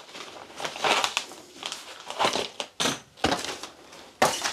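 Clear plastic packaging crinkling and rustling as a coiled bandsaw blade is slid out of its bag, in irregular rustles with a few louder crackles.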